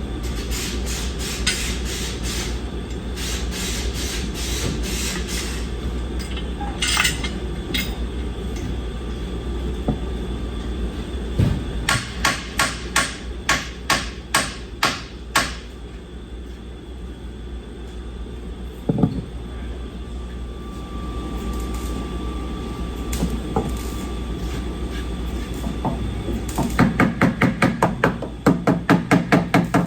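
Hammer blows on metal during car repair work. There are runs of quick strikes, about three a second, one about halfway through and a denser run near the end, over a steady low hum.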